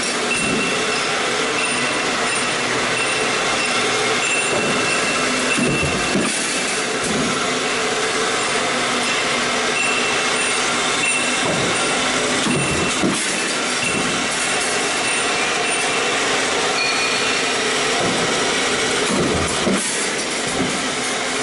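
Stamping press running a progressive deep-drawing die: a loud, steady machine noise with a faint high whine, and a few dull thumps several seconds apart as the press cycles.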